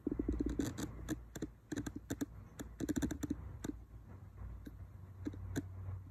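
Mynas pecking at a breakfast burrito: quick clusters of sharp beak taps and clicks, dense for the first three and a half seconds and then a few scattered taps.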